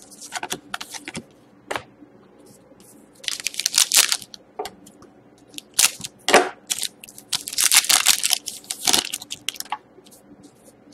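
Foil hockey card pack wrapper crinkling and tearing as a pack is opened, in several short bursts, with cards rustling in the hands between.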